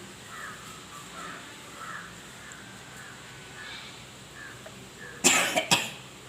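A woman coughing twice: a loud, harsh cough about five seconds in, then a shorter one right after.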